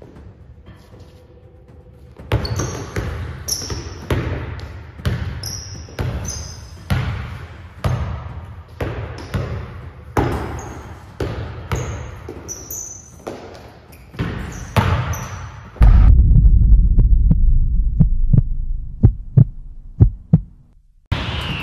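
Basketball dribbled on an indoor court, a bounce roughly every half second to second, ringing in the hall, with sneakers squeaking on the floor. About sixteen seconds in, a loud, deep bass sound with a run of sharp clicks takes over for about five seconds, then cuts off suddenly.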